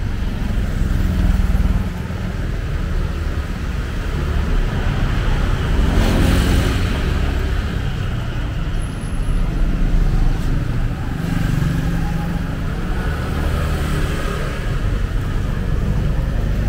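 Street traffic noise: a steady low rumble of car and motorcycle engines, with a louder swell about six seconds in.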